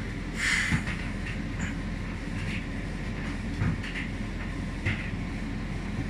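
Hotpoint Aquarius TCL770G condenser tumble dryer running in its cool tumble phase: a steady hum from the motor and turning drum, with irregular soft knocks every second or so.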